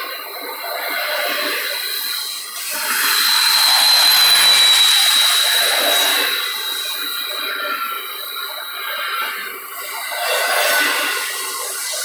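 Double-stack intermodal container cars rolling past close by, their steel wheels running on the rail, with a high steady wheel squeal that swells about three seconds in and fades back a few seconds later.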